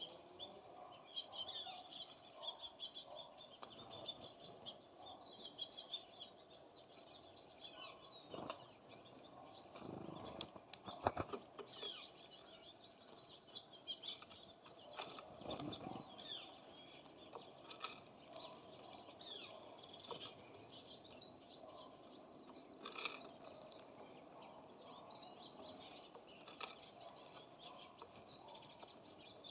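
Small songbirds at a feeder chirping and calling with many short, high notes, fairly faint, with a few brief knocks in between.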